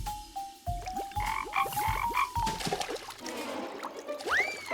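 Cartoon sound effects: a run of short squeaky notes stepping up in pitch over low thumps about twice a second, with quick rising chirps, and a whistle that rises then falls near the end.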